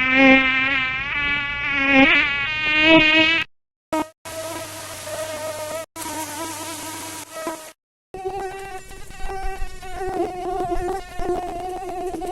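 Mosquito wing whine, a high buzzing drone that wavers and swoops in pitch as the insect flies about. It comes as three separate stretches with short breaks between them. The first stretch is the loudest and the lowest in pitch, the middle one has a hiss under it, and the last sits higher.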